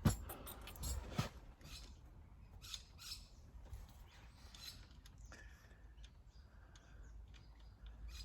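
Scattered light clicks and scrapes of hand tools and metal parts as work goes on at the backhoe's engine, with two sharper knocks right at the start and about a second in.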